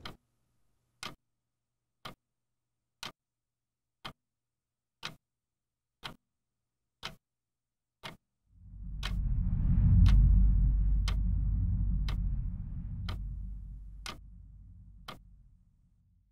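Clock ticking, one tick a second, with dead silence between the ticks. About eight seconds in, a deep low rumble swells up, is loudest a couple of seconds later, and fades away near the end, and the ticking stops with it.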